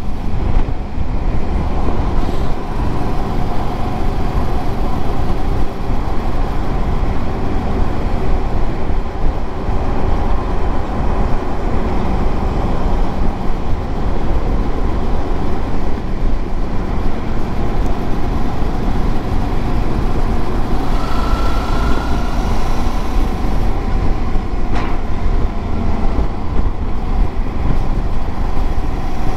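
Wind rushing over the rider's microphone on a moving Suzuki motorcycle, with its engine running steadily underneath. A brief, slightly rising higher tone comes about two-thirds of the way through, and a sharp click follows a few seconds later.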